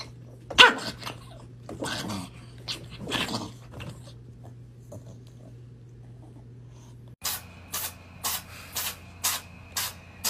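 A dog making a few short vocal sounds. After a cut comes a run of about seven quick, short noisy strokes, roughly half a second apart.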